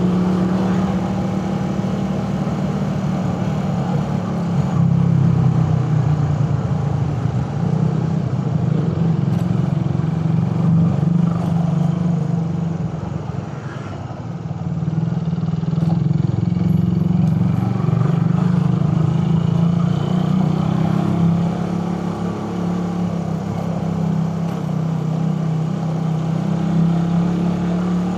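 Suzuki Raider 150 carbureted single-cylinder four-stroke motorcycle engine running steadily while riding, easing off briefly about halfway through and then picking up again.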